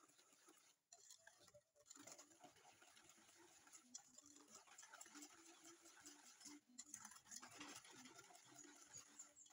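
Wire whisk beating wet batter in a stainless steel bowl, a quick run of light clicks and scrapes of the wires against the metal, with a few brief breaks.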